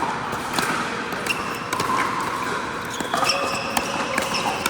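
Pickleball rally on an indoor court: a string of sharp pops as paddles hit the plastic ball and the ball bounces on the court, with short high squeaks mixed in.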